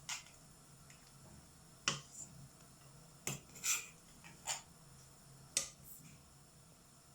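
A serving utensil clinking against the paella pan and serving dish: about six short, sharp clinks spaced irregularly over several seconds.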